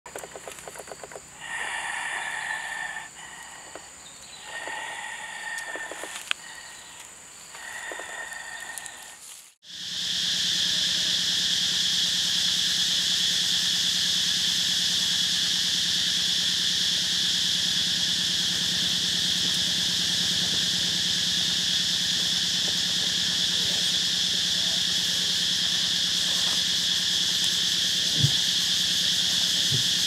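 Dense, steady insect chorus with a high drone that starts abruptly about a third of the way in. Before it come three drawn-out pitched calls, each about three seconds apart.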